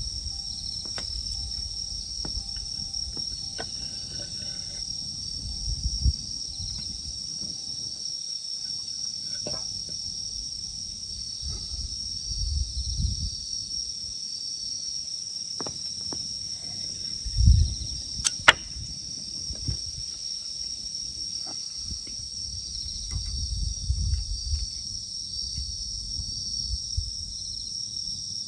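Steady high-pitched chorus of crickets and other insects chirring, with low rumbles now and then and a sharp click a little past halfway.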